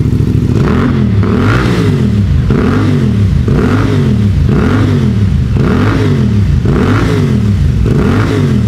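CFMoto 450MT's 449 cc parallel-twin engine, breathing through a ProSpeed SharkBlack slip-on exhaust with its dB killer fitted, idles for a moment and is then blipped to middle revs over and over, about once a second. Each rev rises and falls in pitch, and the exhaust stays mellow ('adem') at these revs.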